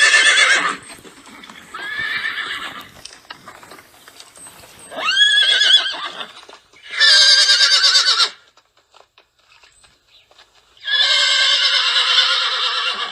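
Horse whinnies, five separate calls a second or two apart. The later calls are long and quavering.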